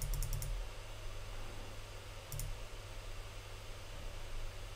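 Computer mouse clicking in short quick runs: about five clicks at the start and two more a little past two seconds in, as the raise size on an online poker bet slider is stepped up.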